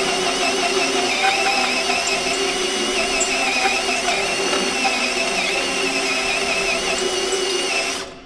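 Makita cordless drill driving a bimetal hole saw through a steel tube with a 4 mm wall: steady motor whine under load with the teeth grinding and a wavering high squeal from the cut. It stops abruptly shortly before the end.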